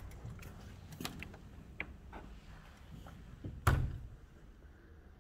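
A classroom door being pushed open, with a few light clicks, then banging shut with one loud, heavy thump a little over halfway through.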